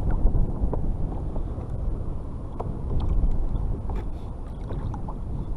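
Wind rumbling steadily on the microphone out on choppy sea water, with a few scattered faint ticks and splashes.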